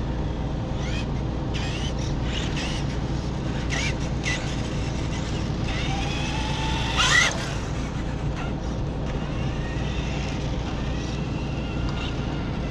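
Electric RC cars driving on asphalt, their motors whining up and down in pitch as they accelerate. A rising whine about seven seconds in is the loudest moment, and a steady low hum runs underneath.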